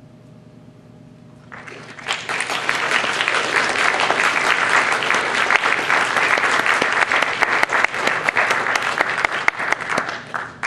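Audience applauding, starting about a second and a half in and dying away near the end, loud and dense with many hands clapping.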